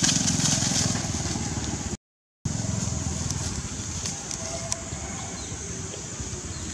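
Outdoor ambience of distant road traffic: a steady low rumble under a steady high hiss. The sound cuts out for about half a second two seconds in.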